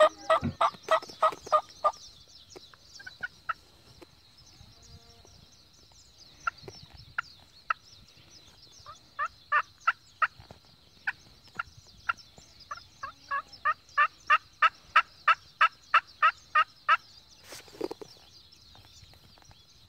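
Turkey calls, slate friction calls and a diaphragm mouth call, imitating hen turkeys yelping to draw a flock in. A fast run of yelps opens, then a few scattered notes, then a long even series of yelps at about three a second for some eight seconds.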